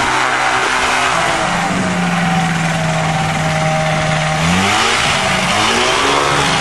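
Piston engine and propeller of a light ski-plane running close by as it taxis on snow, with rushing propeller noise. The engine note holds steady, then rises about four and a half seconds in.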